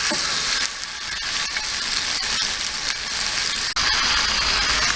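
Marinated chicken tikka pieces and diced onion, capsicum and tomato frying in butter on a hot tawa: a steady loud sizzle with scattered crackles and pops.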